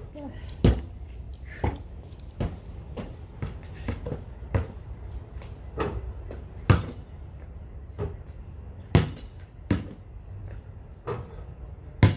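Basketball being shot at a hoop and bouncing on a concrete pad: a dozen or so irregularly spaced thuds, a few much louder than the rest.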